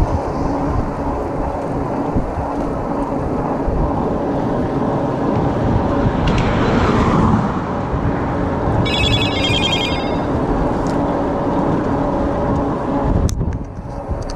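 Steady wind rush on the microphone and tyre noise from an electric bike riding at speed. There is a swell of noise about six to seven seconds in. Just after nine seconds in comes a short electronic ringing tone in two quick pulsing bursts, about a second and a half in all.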